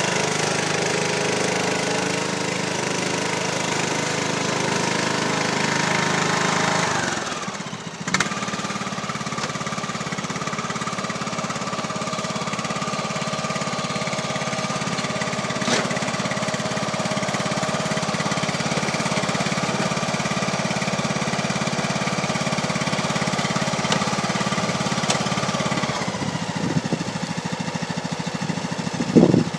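Lawn tractor's small engine running steadily; about seven seconds in it dips briefly, then settles into a steady run at a different pitch, with a few sharp clicks along the way.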